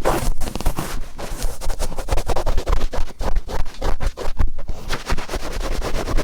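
Cotton swab rubbed firmly and quickly around and in an ear: a dense run of close, scratchy rubbing strokes, several a second.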